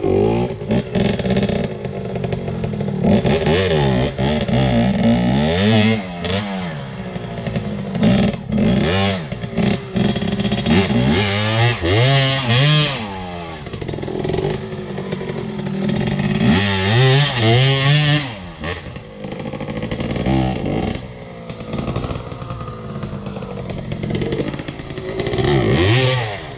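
Enduro dirt bike engine revving up and down again and again, its pitch rising and falling every second or two as the throttle is worked.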